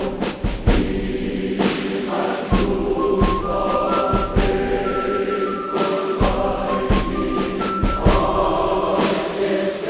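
Background music: choral voices holding sustained notes over percussion hits.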